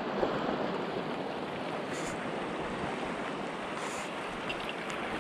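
Shallow sea water lapping and sloshing close to the microphone, a steady even wash of small waves.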